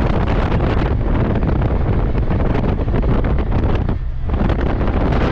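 Wind buffeting the microphone through the open side window of a moving work van, over the van's road and engine noise. It eases briefly about four seconds in.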